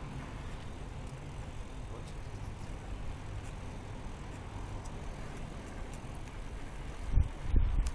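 Steady low rumbling noise from a camera carried on a moving bicycle, with two heavy low thumps near the end.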